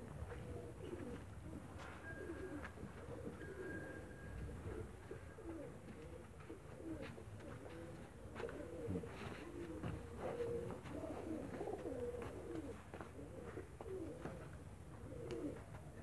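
Pigeons cooing, several calls overlapping continuously.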